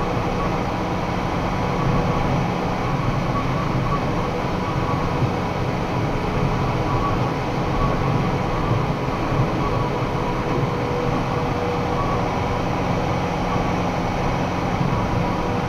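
Box truck cruising at highway speed, heard from inside the cab: a steady engine drone with road and wind noise and a faint steady hum, with no changes.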